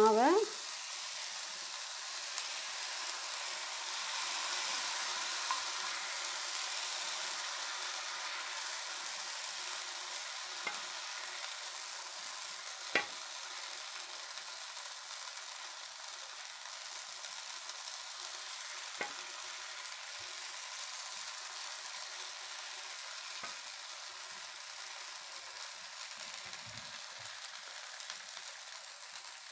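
Thin rava dosa batter sizzling as it is poured onto a hot dosa tawa over chopped onion. A steady hiss that is loudest a few seconds in and slowly fades, with a few light clicks.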